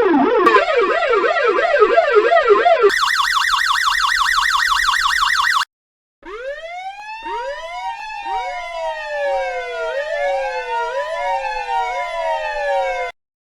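Police siren sound effects in edited variations. First a fast up-and-down yelp. About three seconds in it switches to a higher, faster yelp, which cuts off suddenly near six seconds. After a brief gap, several slow rising-and-falling wails overlap one another until they stop just before the end.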